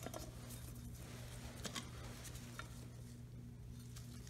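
Faint small clicks and rustling of gloved hands handling a pull-start recoil pulley in its plastic-and-metal housing, with one sharper click at the start. A steady low hum runs underneath.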